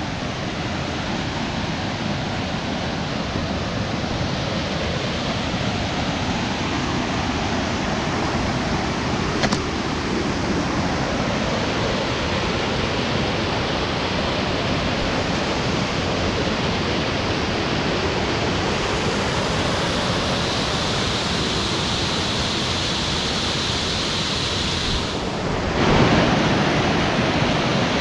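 A large waterfall pouring, a steady rush of falling water. It grows louder about two seconds before the end.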